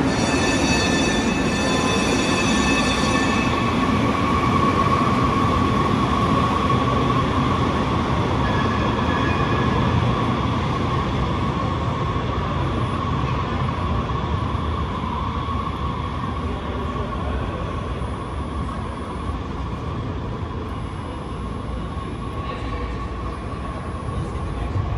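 Muni Metro light-rail trains running in the station: a continuous rail rumble with a steady high whine. The whine is strongest through the first half and fades after that, and a stack of higher tones rings over it for the first few seconds.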